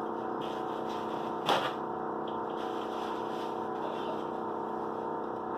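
Steady hum with several fixed tones, like an appliance running, with one short clink about a second and a half in.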